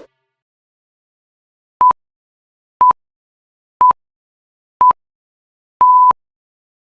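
Electronic countdown beeps: four short beeps of one steady pitch, a second apart, then a longer final beep of the same pitch, like a countdown or time-signal pips.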